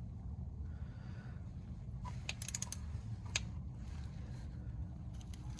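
A few sharp clicks and ticks from hand tools working on the engine, with a quick run of clicks about two and a half seconds in and one louder click a second later, over a low steady rumble.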